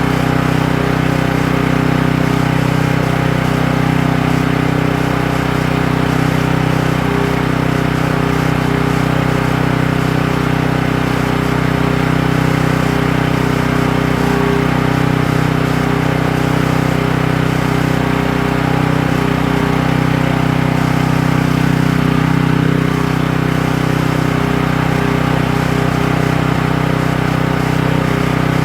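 Ryobi 4500-watt portable generator (RY903600) running steadily, its lever switched from cold start to run; an even engine drone with no change in speed.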